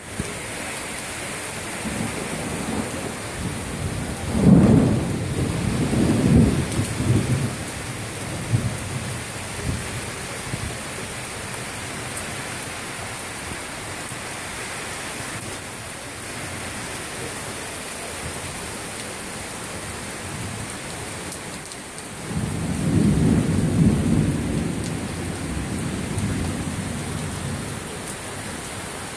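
Heavy rain pouring steadily in a thunderstorm. Two long rolls of thunder rumble over it, one about four seconds in and another about three quarters of the way through.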